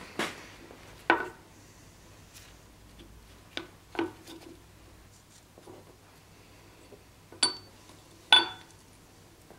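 A small steel block, the blank for a sword guard, being handled on a wooden workbench: about six sharp metallic clinks and knocks as it and the tools are set down and moved, the last one near the end ringing briefly.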